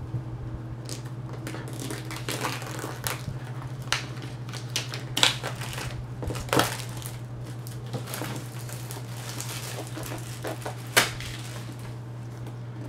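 Clear plastic shrink wrap being torn and peeled off a cardboard product box, crinkling and crackling irregularly, with a few sharper snaps, the loudest about eleven seconds in. A steady low hum runs underneath.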